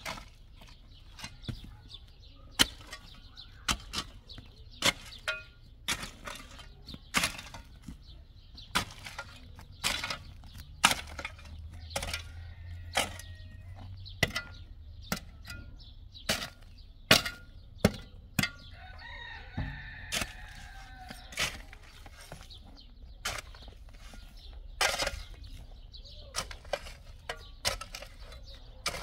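Irregular sharp knocks, roughly one a second, with a bird calling about twenty seconds in.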